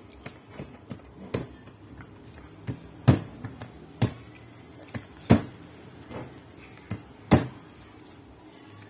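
A large knife chopping into the spiky husk of a whole durian: about a dozen sharp, irregular knocks as the blade is struck into the shell to split it open, the loudest a little after three and five seconds in.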